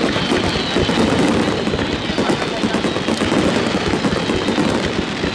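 A fireworks barrage: many aerial shells burst in quick succession, giving an unbroken run of rapid bangs and crackles.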